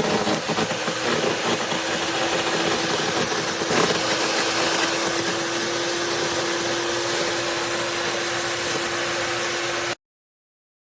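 Yeryork 15-amp electric wood chipper's motor running steadily with a whine, one brief knock about four seconds in. It cuts off suddenly near the end.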